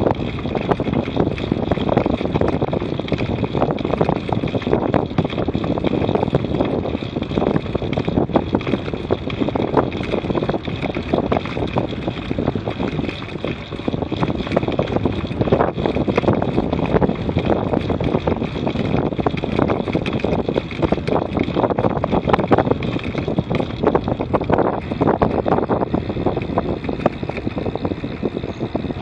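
Wind noise buffeting the microphone of a camera on a bicycle riding at about 25 to 30 km/h: a continuous gusty rush that never lets up.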